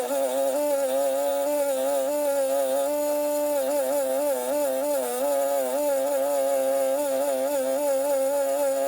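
Background music: a melody of sliding, wavering notes over a steady held pitch.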